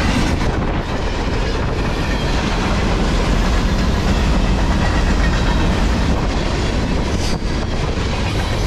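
Freight train cars rolling past close by: a steady, loud noise of steel wheels running on the rails.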